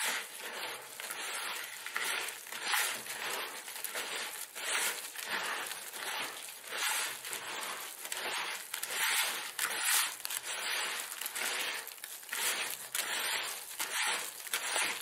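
Hands kneading a wet soil mix of akadama granules, peat and clay in a plastic bowl: a gritty, squelching crunch with each squeeze, repeated about one to two times a second.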